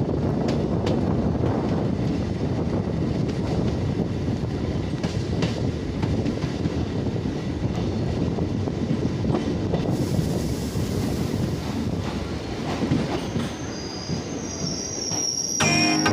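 Local passenger train running, heard from on board: a steady rumble of wheels on rails with occasional sharp clacks over the rail joints. A thin, high squeal comes in over the last few seconds.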